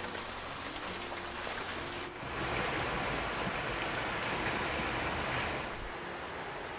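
Steady rush of rain and flowing river water. About two seconds in the sound changes abruptly to a brighter hiss, which softens again near the end.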